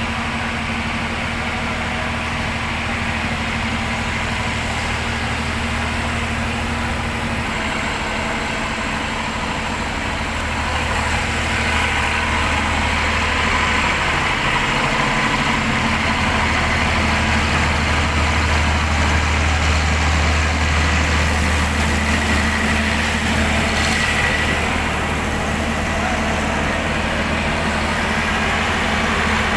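Heavy diesel engine running steadily, growing louder about eleven seconds in and briefly dipping a few seconds later.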